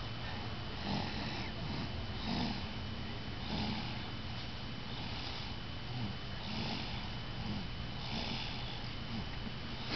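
Snoring: a steady run of quick, regular snoring breaths, each a short rush of breathy noise, coming about once every second or so.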